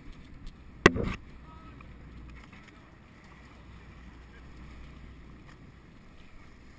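Steady wind and water noise around a fishing boat at sea, with one sharp, loud knock about a second in.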